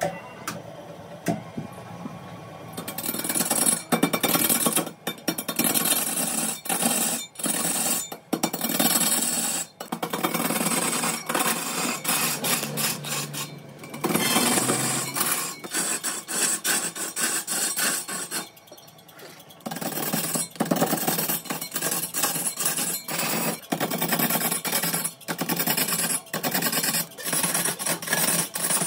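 Wood being scraped and cut by a tool, as in woodturning, in repeated passes with many short breaks.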